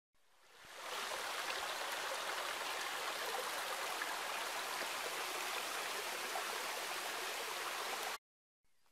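Water of a small rocky forest stream rushing steadily over stones. It fades in over the first second and cuts off suddenly near the end.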